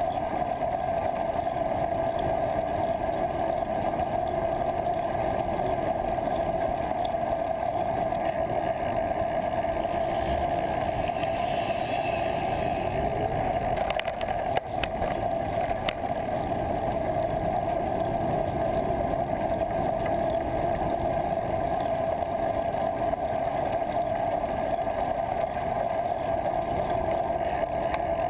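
Steady wind and road rumble from a moving bicycle, picked up by a bike-mounted GoPro Hero 2, with a constant hum running underneath. There are a couple of sharp knocks about halfway through.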